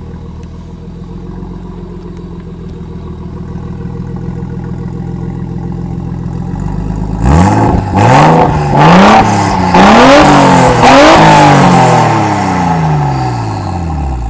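Nissan RB25 turbocharged straight-six, fitted with a Tomei Arms MX8265 turbo and a new exhaust, idling steadily. About seven seconds in it is revved four times in quick succession, then the revs fall away slowly near the end.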